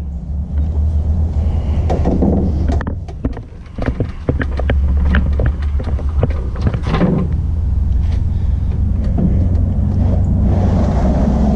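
Polyethylene hull of a Hobie Pro Angler kayak sliding and scraping along PVC pipe bunks as it is pulled onto a wooden cart, with scattered knocks and rubbing over a steady low rumble.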